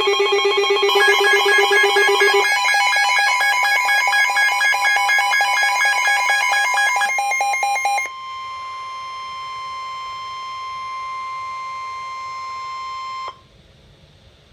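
Emergency weather alert tones: a rapid, trilling electronic alarm of several stepped tones for about eight seconds. It gives way to a single steady tone, the weather-radio warning alarm tone, which holds for about five seconds and then cuts off suddenly.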